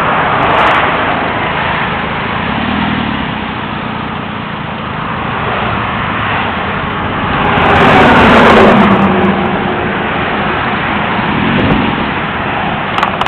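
Steady highway traffic rushing past, with a vehicle passing loudly about eight seconds in.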